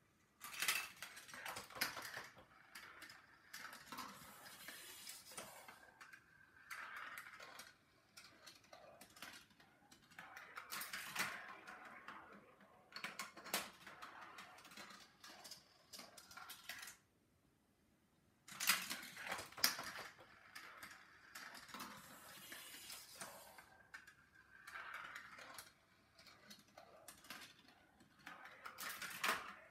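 Steel marbles rolling and clattering through a GraviTrax plastic marble run: rattling along the track and clicking through switches and splitters in runs of several seconds. The run falls silent twice, at the very start and about 17 seconds in, and sharp clacks follow the second pause as the next marble sets off.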